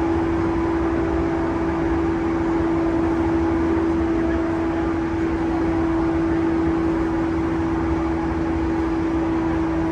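JR East E235-1000 series electric train running at steady speed, heard from inside the car: an even rumble with a constant low hum.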